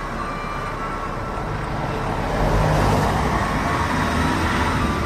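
Car driving along a road, heard from inside the moving car: engine rumble and tyre noise, swelling a little about halfway through.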